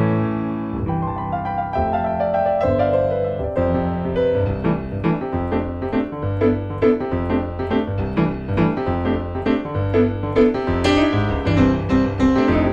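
Background piano music: a melody of struck notes over a steady bass line.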